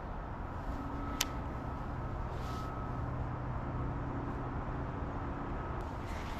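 Wind rumbling on the microphone, with a faint steady engine hum under it and one sharp click about a second in.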